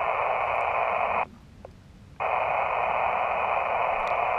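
Elecraft KX2 transceiver's receiver hissing with band noise on the 20-metre single-sideband phone band while no station is transmitting, the hiss narrowed to the receive filter's voice passband. It cuts out sharply for about a second in the middle, then comes back.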